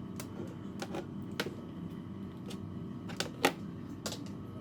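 About seven short, sharp clicks at uneven intervals, the loudest about three and a half seconds in, over a steady low hum.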